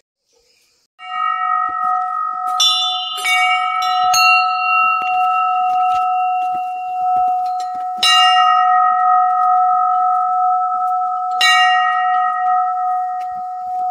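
Metal temple bell struck several times; each strike rings on, so the tone hangs unbroken between strikes.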